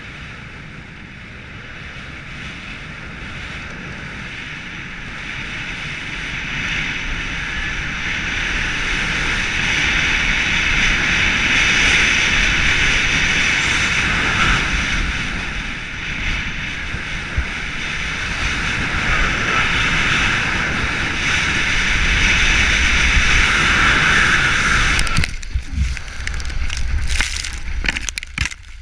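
Wind rushing over the camera microphone with skis hissing on snow during a fast downhill ski run, growing louder as speed builds. About 25 seconds in the rush cuts off suddenly and a run of irregular knocks and thuds follows as the skier crashes and tumbles in the snow.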